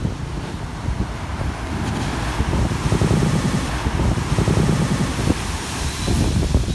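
Ocean surf: waves rolling in as a steady wash, with wind buffeting the microphone in uneven low rumbles.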